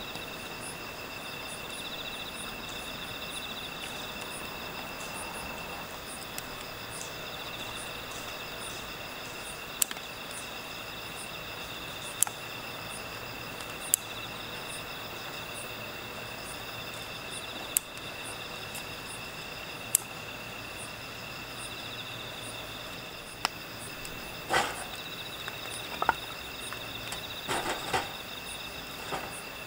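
Crickets and other night insects chirping steadily, with a wood campfire in a metal brazier giving a few sharp pops. Near the end, several knocks and scrapes as logs are put on the fire.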